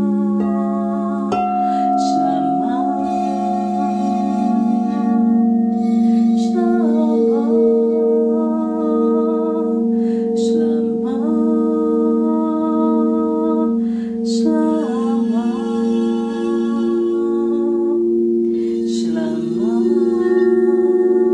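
Crystal singing bowls played with a wand, several steady, overlapping ringing tones sustained throughout, while a woman sings long wordless tones over them, her voice sliding up at the start of each phrase.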